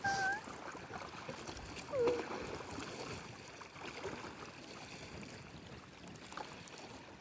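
Gentle water lapping and splashing along a lakeshore, an even low wash, with two short vocal sounds from a person at the start and about two seconds in.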